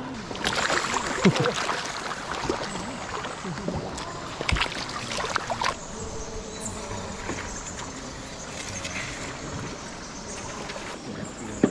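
Small boat moving through water: splashing and trickling, with a few sharp knocks and brief voices.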